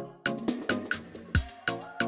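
Background music with a steady beat of sharp percussion hits over pitched bass and chord notes. A low note slides down about a second and a half in.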